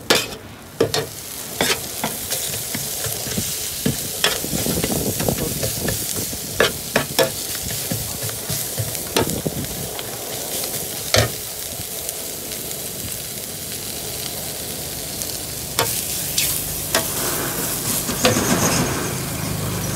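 Leafy greens sizzling as they are stir-fried in a large shallow wok. A metal spatula scrapes and knocks against the pan again and again at an irregular pace.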